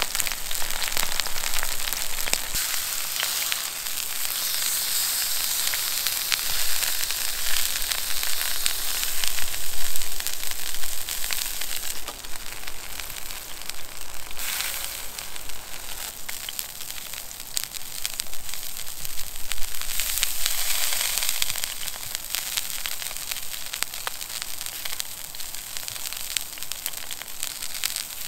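Steak sizzling in hot oil on a cast-iron Dutch oven lid over a wood-burning camp stove, a dense steady hiss with the wood fire crackling under it. The sizzle eases about twelve seconds in, once the steak is off the lid.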